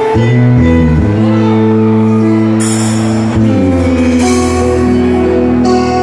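Live band playing: drum kit, bass guitar and keyboard holding sustained chords over a moving bass line, with three cymbal crashes in the second half.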